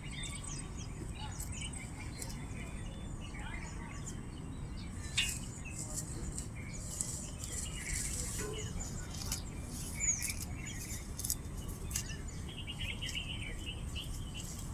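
Small birds chirping and calling, with many short high chirps and a single falling call about ten seconds in, over a steady low rumble.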